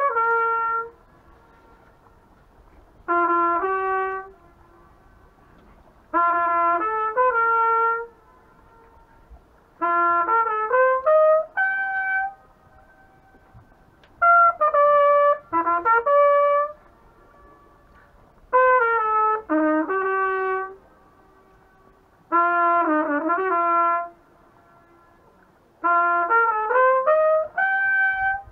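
Boatman's trumpet playing short melodic phrases, about eight of them, each separated by a pause of about two seconds. The phrases are blown toward the lake's rock wall to demonstrate the echo.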